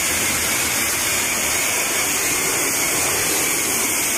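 Self-serve car wash high-pressure wand spraying soapy water onto a car's paint: a steady, even hiss of spray.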